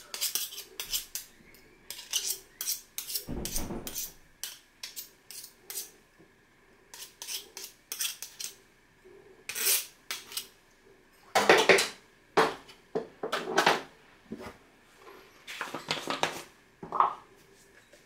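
Metal spoon scraping and clinking against a plastic mixing bowl as a thick egg-and-mayonnaise salad is stirred and scooped, in irregular strokes. The loudest cluster comes a little past the middle.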